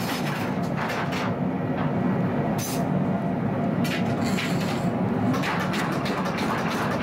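Motor-driven horizontal grinding wheel running with a steady low rumble as a kitchen-knife blade is held flat against it. There are two brief sharper scrapes, a little under 3 seconds in and again about a second later.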